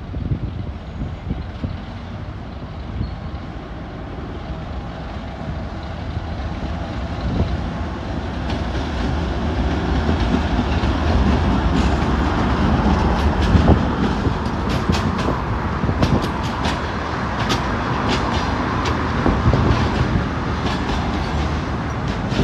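2M62 twin-section diesel locomotive running as it approaches and passes close by, its low engine rumble building, followed by a train of track-maintenance machines rolling past with wheels clicking over rail joints. The rumble is loudest a little after the middle, and the clicking starts about a third of the way in.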